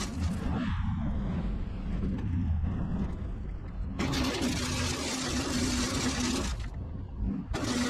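Truck engine running with the sand spreader going: a steady low drone and hum. Over it a hiss drops away about half a second in, comes back about four seconds in, and cuts out briefly near the end.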